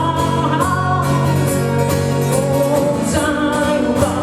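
Live acoustic trio music, guitar-led, playing a short instrumental passage between sung lines over a sustained low note.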